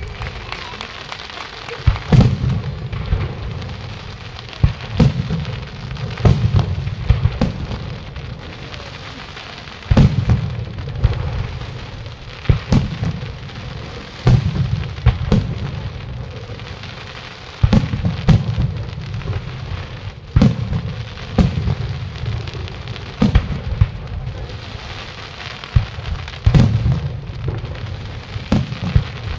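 Aerial fireworks display: shells bursting overhead one after another, a sharp bang every one to three seconds, each followed by a low rolling echo. A constant hissing crackle fills the gaps.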